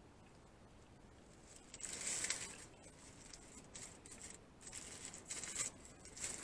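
Crinkling and rustling of a fast-food burrito wrapper being handled and set aside, in irregular bouts starting about two seconds in.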